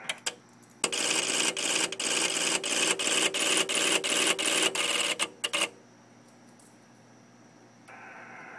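Relays of an LDG AT-1000Pro automatic antenna tuner chattering rapidly for about five seconds during a tuning cycle as it searches for a match, then stopping.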